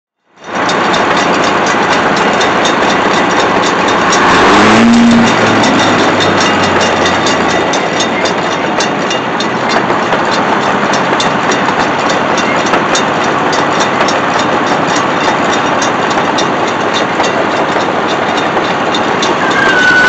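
A Meadows circular sawmill running loudly and steadily, its belt-driven saw and power unit making a dense mechanical noise. The noise swells for about a second some four seconds in, and a brief high squeal comes near the end.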